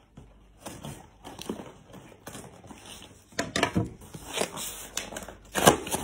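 Cardboard shipping box being opened by hand: packing tape peeling and cardboard flaps scraping, rustling and tapping in an irregular scatter, with the loudest, a sharp knock, just before the end.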